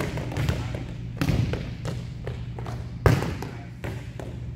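Volleyballs being hit and bouncing on a gym court floor: a few sharp smacks and thuds, the loudest about three seconds in, over a steady low hum.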